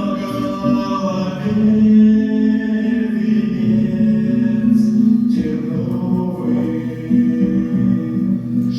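Vocal music: singing voices holding long, drawn-out notes, with a short break about five seconds in.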